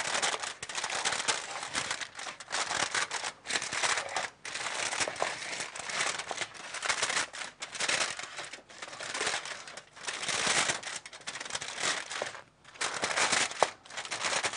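Aluminium foil crinkling in uneven spells with short breaks, as hands crimp it tight around the rim of a baking dish to seal the dish shut.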